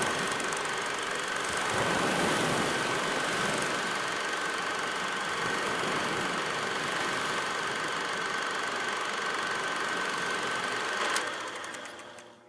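A small machine running steadily, with a steady high whine over a noisy mechanical rattle. About eleven seconds in there is a sharp click, after which it fades out quickly with fine ticking.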